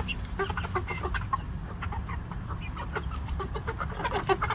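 A huddle of young chickens calling: many short, overlapping clucks and peeps, over a steady low rumble.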